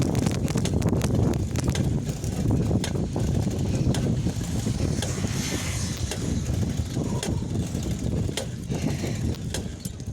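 Bicycle being ridden, with a constant rumble of tyres and wind and many irregular sharp clicks and knocks from the bike: the pedal catching as it turns.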